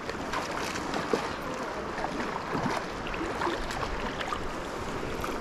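River current swirling and lapping close to the bank, with light splashing from the hooked steelhead thrashing at the surface.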